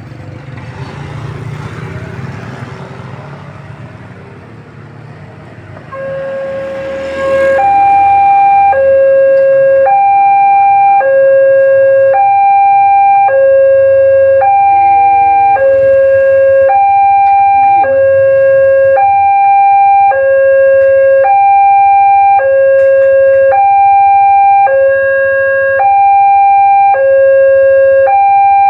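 A railway level crossing's new electronic warning siren starts about six seconds in and sounds loudly. It alternates evenly between a low tone and a higher tone, about a second each, at an unchanging pitch.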